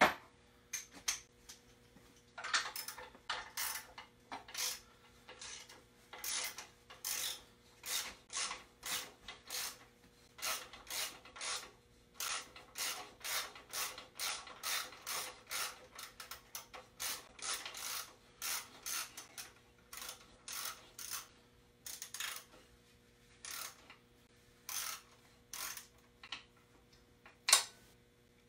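Hand ratchet wrench clicking in repeated short strokes, about two a second with brief pauses, as bolts are worked loose on an engine's front accessory bracket. One louder metal clank comes near the end.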